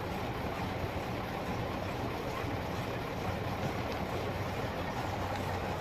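Farm tractor engine running steadily at idle, driving a feed grinder: an even mechanical noise with a low hum.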